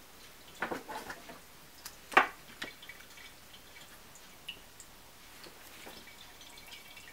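Water trickling and dripping from the shell spout of a small ceramic cat drinking fountain, pushed by its low-voltage pump. A few light clicks and knocks come from a power cable and battery pack being handled, the loudest about two seconds in.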